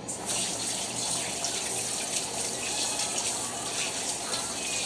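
Kitchen tap running steadily into the sink, starting just after the sound opens.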